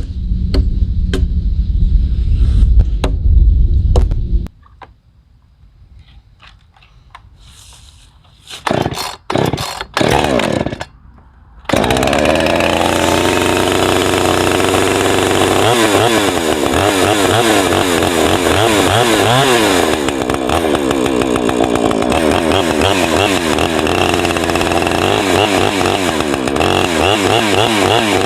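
Small gasoline engine, a sawmill or chainsaw engine, catching after three short sputters about nine to eleven seconds in, then running loud and steady with its pitch wavering under load. A loud low rumble in the first few seconds cuts off suddenly.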